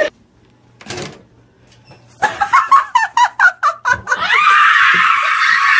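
A person's quick run of short laughing cries, about five a second, then one long high-pitched scream of fright at a fake rat.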